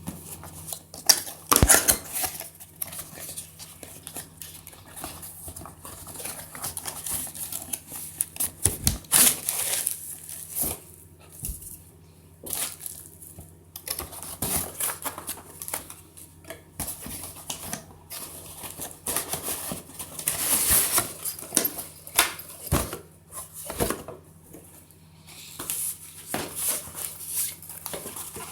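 Product packaging being handled and opened: irregular clicks, taps and knocks with stretches of rustling and crinkling, over a faint steady hum.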